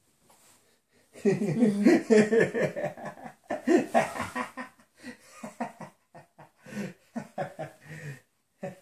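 Laughter starting about a second in, loudest over the next few seconds, then breaking into a run of short, rhythmic vocal sounds.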